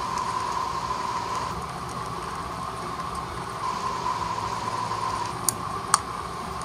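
Steady airliner cabin noise: a continuous rush with a faint steady tone in it. Two sharp clicks come near the end, about half a second apart.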